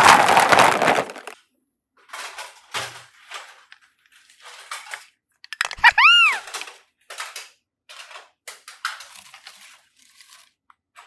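Slime being squeezed and worked, giving short crunchy crackles, the longest and loudest at the start. About six seconds in, a cartoon whistle effect rises and falls once.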